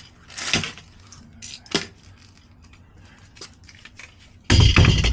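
Handling noises as parts are picked up and moved: a brief rustle, a sharp click and a few light ticks, then a loud clattering thump near the end.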